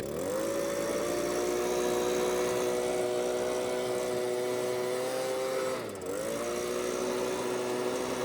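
Gas-powered leaf blower running at full throttle with a steady engine whine, opened up right at the start; the throttle is eased off briefly about six seconds in and opened back up.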